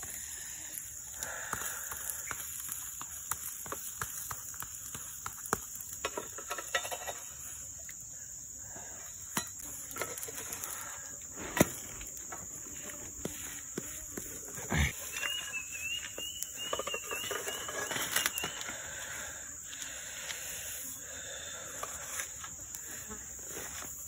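A steady high-pitched drone of forest insects, with scattered clicks and knocks of a wooden spatula and chopsticks against a skillet over a campfire. A short warbling call sounds a little past the middle.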